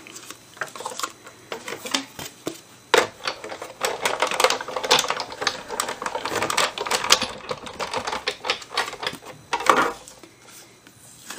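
Hand-cranked die-cutting machine turning as a plastic plate sandwich is rolled through it, cutting a paw-print die into card stock. Dense clicking and creaking, heaviest from about three to ten seconds in.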